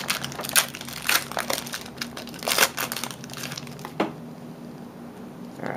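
Foil wrapper of a 2009-10 Panini Crown Royale basketball card pack crinkling and tearing as it is ripped open, busiest over the first three seconds, with one sharp click about four seconds in.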